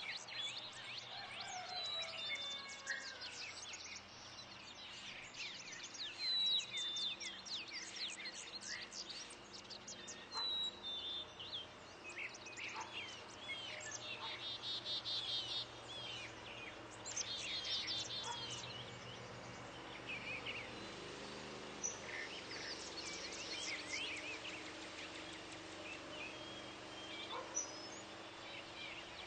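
Several songbirds chirping and calling over one another, with quick sharp notes throughout and a couple of buzzy rattling calls in the middle.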